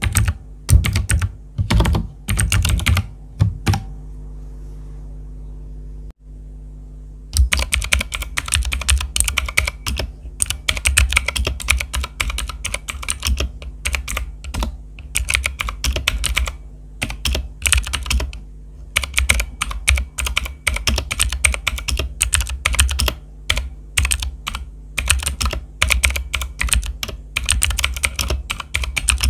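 Typing on a T-Dagger TGK317 mechanical keyboard with clicky Outemu Blue switches: fast, sharp key clicks. They stop for about four seconds a few seconds in, then resume as steady typing.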